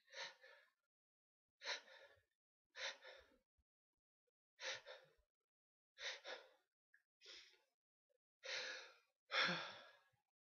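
A run of short breathy gasps and sighs from a person, about nine of them spread unevenly, the last two longer and louder.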